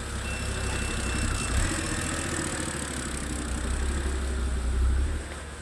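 BMW 328xi inline-six engine idling roughly with a steady low rumble. The car is logging a cylinder 2 misfire and both banks running lean.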